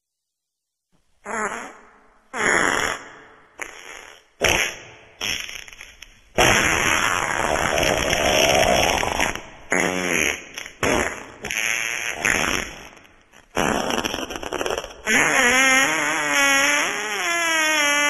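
Wet fart sounds after about a second of silence: about five short farts, then longer sputtering ones, the last with a wavering pitch that falls near the end.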